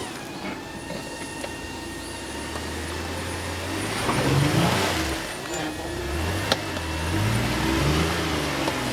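Jeep Wrangler JKU's engine revving in repeated pushes, its pitch rising and falling as it works the off-road vehicle over the obstacle, with a single sharp click a little past halfway.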